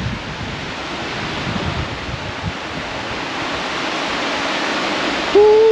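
Steady rushing of a clear river running over rocky riffles and small rapids, with some wind on the microphone. Near the end a man lets out a long, steady 'woo'.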